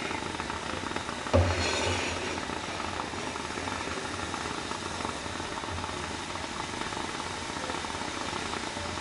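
A pan of water and plain yogurt at a full boil, a steady bubbling hiss, stirred with a silicone spatula. There is one louder knock about a second and a half in.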